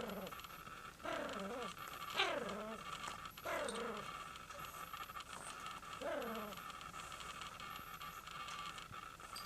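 A cat mewing: about five short calls, each falling in pitch, spread over the first six seconds.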